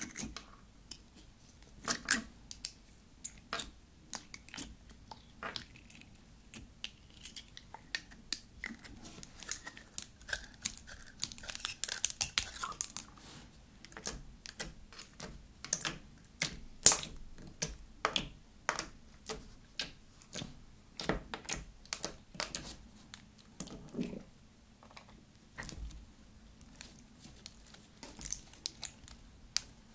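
Glossy blue slime being pulled from its plastic jar, then poked, kneaded and stretched with long hard nails: an irregular run of sticky clicks, pops and crackles, thickest about a third of the way in.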